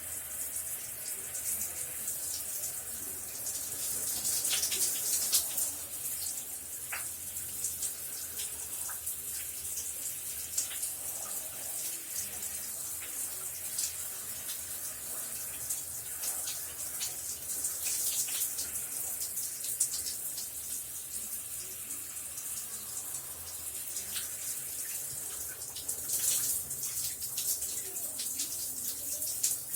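Shower running steadily: a constant hiss of falling water with many small splashes of droplets, swelling a little louder now and then.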